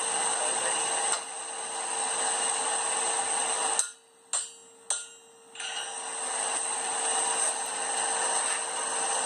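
A steady rushing, machine-like noise with a faint constant hum. About four seconds in it cuts out for under two seconds, and two sharp clicks sound in the gap before it starts again.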